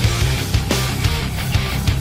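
Heavy rock music with distorted guitars, a steady drum beat and bass.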